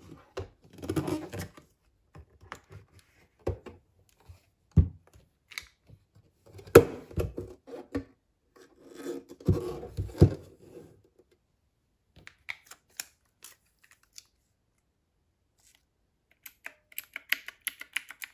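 Handling of a hard plastic carrying case and a Divoom Ditoo pixel-art speaker: the case is opened and the speaker lifted out and set on a desk, with knocks, scrapes and rustling. Near the end, a quick run of small clicks as the speaker's keyboard-style keys are pressed.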